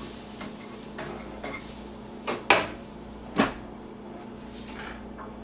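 Kitchen utensils and dishes clinking and knocking, a handful of separate clatters with the loudest about two and a half seconds in and another about a second later. Under them a faint sizzle from the pan of garlic, just switched off, dies away about halfway through.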